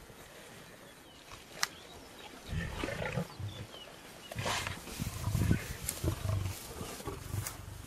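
Lion growling in low rumbling bursts while feeding on a carcass, starting about two and a half seconds in and recurring several times.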